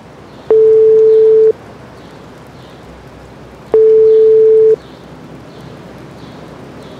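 Telephone ringback tone heard through the phone: a steady single-pitched beep of about a second, repeating every three seconds or so, twice, with a third starting at the end. It means the called phone is ringing and has not been answered.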